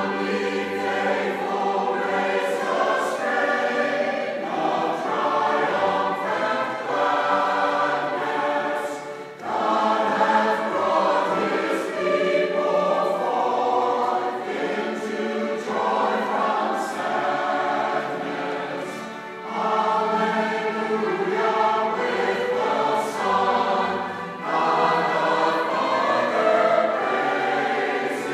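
Church choir singing a cantata in sustained harmony, in long phrases with brief breaths between them.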